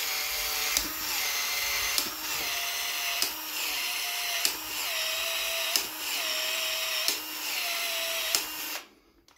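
Milwaukee M12 ProPEX expansion tool running, its motor cycling the expander head with a sharp click about every 1.3 seconds, the motor pitch dipping after each click as the head opens again, then stopping shortly before the end. It is stretching a PEX pipe end and its expansion ring so a fitting can be pushed in.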